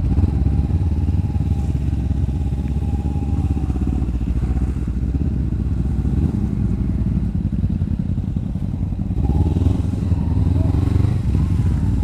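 Kawasaki Ninja 250FI's parallel-twin engine running steadily as the bike rolls slowly, with other motorcycles running close by. The low engine note grows a little louder about nine seconds in.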